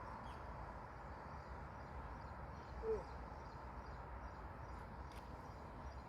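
Faint outdoor ambience: a low steady rumble with one short chirp about three seconds in.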